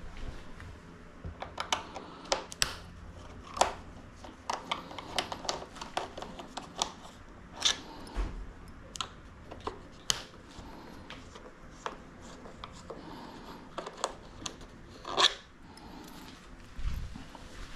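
Hands handling the parts and screws of a remote-control model jet being taken apart: irregular clicks, taps and light rustling, with one louder knock near the end.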